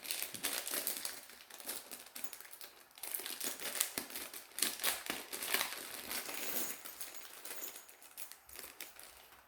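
Thin plastic packaging bag crinkling in irregular crackles as it is handled, dying away near the end.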